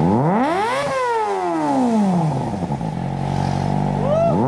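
Kawasaki ZX-25R's 250 cc inline-four idling through an aftermarket Villain muffler during a sound test. It is revved once, rising for about a second and sliding back down to idle, then blipped again near the end.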